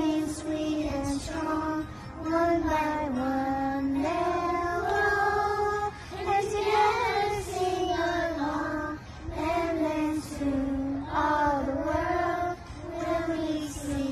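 Young kindergarten children singing together in unison, a slow melody of long held notes.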